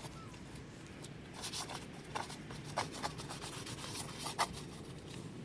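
Paint brush scrubbing adhesive primer onto a rubber roof membrane: a run of short scratchy strokes, bunched in the middle.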